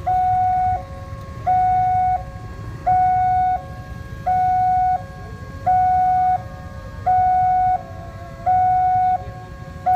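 Electronic level-crossing warning alarm sounding a two-tone signal, a louder higher note alternating with a lower one about every 1.4 seconds, as the crossing closes for an approaching train. Idling motorbike and car engines run underneath.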